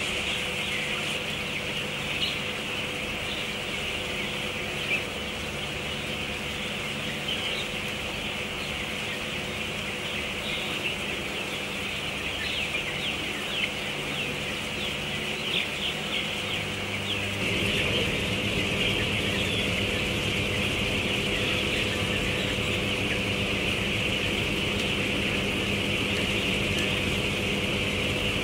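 A large flock of three-week-old broiler chickens cheeping and chirping all at once, over a steady mechanical hum of the poultry house. A little past halfway the hum becomes louder and deeper.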